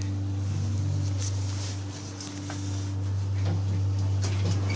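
2006 ThyssenKrupp car park lift travelling: a steady low hum, with a faint higher tone over the first few seconds and a few light clicks.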